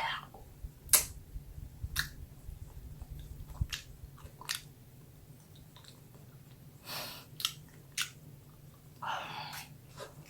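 Close-miked eating sounds: chewing with sharp, scattered mouth clicks and a few soft, short noisy bursts.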